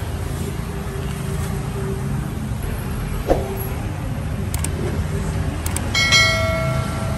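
Subscribe-button sound effects: two pairs of mouse clicks, then a short bright bell ding about six seconds in, over a steady low background rumble. A single knock sounds about three seconds in.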